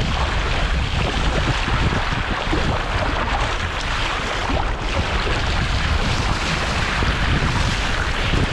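Wind buffeting the microphone over the steady rush of ocean surf and moving water.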